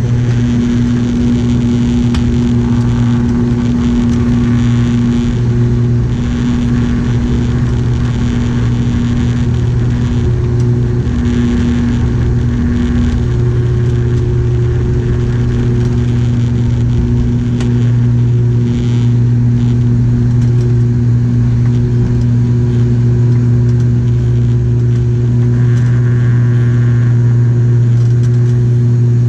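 ATR 72-600's Pratt & Whitney PW127M turboprop and six-blade propeller at takeoff power, heard from inside the cabin: a loud, steady propeller drone with a deep hum and its overtones over a low rumble, through the takeoff run and liftoff.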